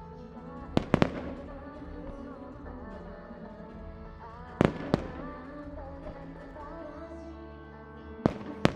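Aerial firework shells bursting with sharp cracks, three pairs of them: about a second in, near the middle, and near the end. Between the cracks, pop music with singing plays over loudspeakers for the fireworks show set to music.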